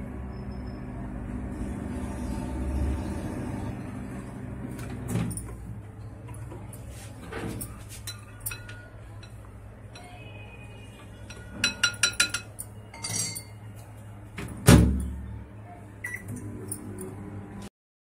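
Microwave oven running with a steady hum, then its door is opened with a click; a spoon clinks rapidly against a glass bowl as the food is stirred, and the door shuts with a loud thud about fifteen seconds in.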